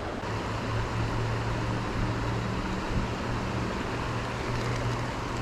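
Creek water running steadily, with a steady low hum over it.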